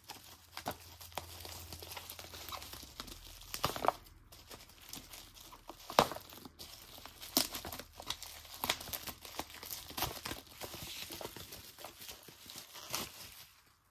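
Plastic bubble wrap crinkling and rustling as hands unwrap a box, with many irregular sharp crackles, the loudest about six seconds in.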